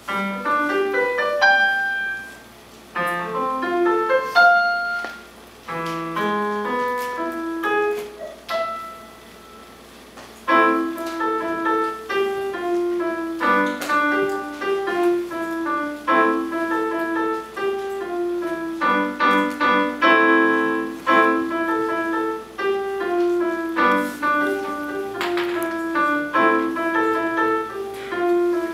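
Solo piano playing. It opens with short, separate phrases broken by pauses in which the notes die away, the longest pause ending about ten seconds in. After that it settles into a steadier, fuller passage of chords over a moving line.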